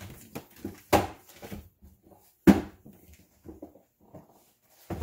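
Two sharp thumps about a second and a half apart, the second the loudest, with lighter knocks and clicks between them: a refrigerator door being opened and shut as food is put away.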